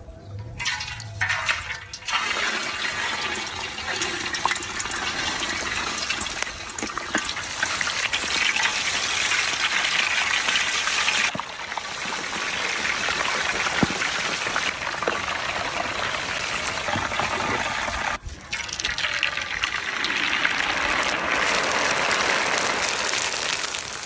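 Water running from a tap in a steady stream, briefly interrupted twice.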